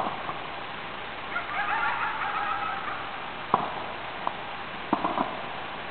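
A wolf howling: one wavering, pitched call of about a second and a half. It is followed by four sharp pops of distant fireworks in the second half.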